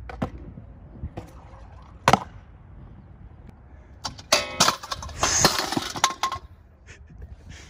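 Stunt scooter knocking on concrete at a skatepark: a few single sharp knocks, then about two seconds of metal and concrete clatter with brief ringing around the middle as a rider falls at a steel rail.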